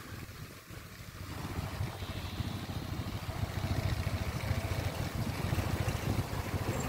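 Motorbike engine running on the move, with wind rushing over the microphone; the sound grows louder after about a second.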